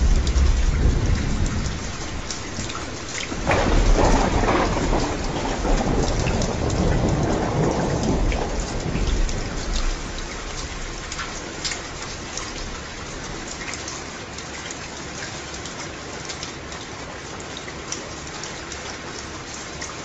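Steady rain with many separate drops patting down, under rolling thunder. A low rumble at the start gives way to a louder thunderclap about three and a half seconds in, which rumbles away over the next several seconds, leaving quieter rain.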